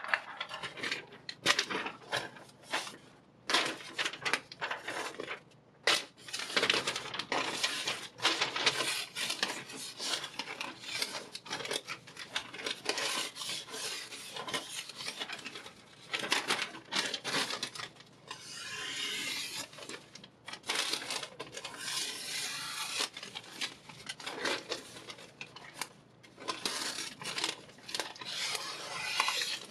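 Steel knife blade scraping across diamond sharpening stones in repeated, irregular strokes.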